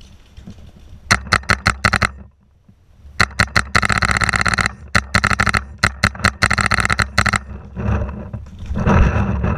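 Paintball marker firing in rapid strings of shots. About seven quick shots come a little after a second in, then longer, faster strings from about three to seven seconds in. A short noisy burst follows near the end.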